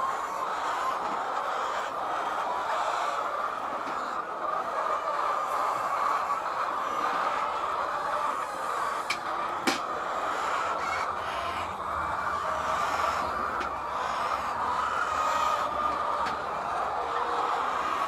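Steady chorus of a flock of white layer hens clucking and murmuring together, with one sharp knock about halfway through.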